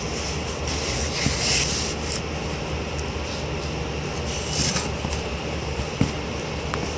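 A block of Marinite calcium silicate insulation board, handled in work gloves, rubbing and scraping against cardboard as it is turned over and slid. The scraping is loudest about a second in and again near five seconds, with a few light knocks as the block is set down.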